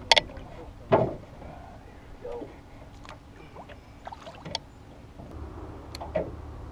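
Scattered knocks and thumps of people and gear moving about in a small fishing boat, the loudest about a second in. A low steady rumble sets in near the end.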